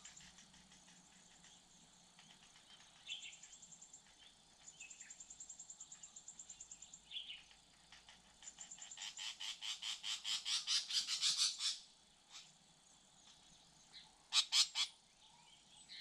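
Wild animal calls: several runs of fast repeated trilled notes, the loudest and longest about nine to twelve seconds in, then two short sharp calls near the end.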